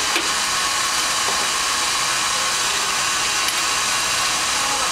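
An electric air blower running steadily: an even rush of air with a faint constant whine.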